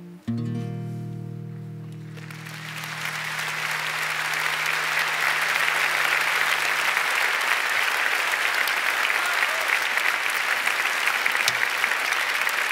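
A final strummed chord on an acoustic guitar rings and slowly fades. From about two seconds in, audience applause swells and carries on steadily.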